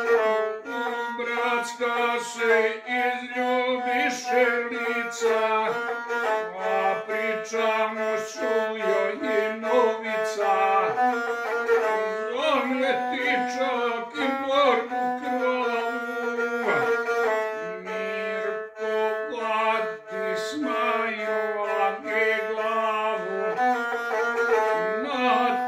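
Gusle, a single-string bowed folk fiddle, played with a bow: a quick, ornamented melody stepping among a few close notes without a break.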